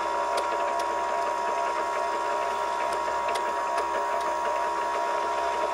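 Ekelund electric drum carder running at slow speed: a steady motor hum with a high whine as the carding drums turn, with a few faint ticks.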